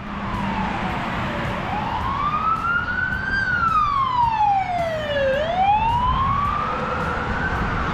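Emergency vehicle siren in a slow wail, its pitch rising and falling over about two seconds per sweep, over the noise of road traffic.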